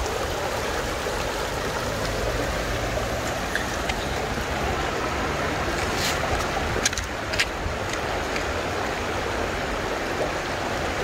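Fast-running floodwater rushing along a street after heavy rain, a steady rushing noise. A few short knocks come about six to seven and a half seconds in.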